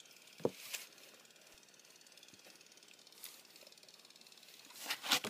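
Near quiet room tone broken by a few faint rustles and soft clicks: one knock about half a second in and a small cluster near the end.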